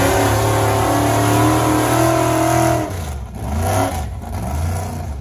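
Big-tyred mud truck engine running with a steady drone, easing off about three seconds in, then rising briefly once more before fading.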